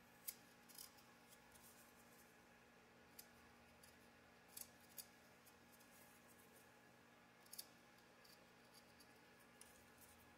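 Near silence with a dozen or so faint, irregular clicks of small plastic and metal RC buggy suspension parts (rear arms, hinge pins) being handled, over a steady low hum.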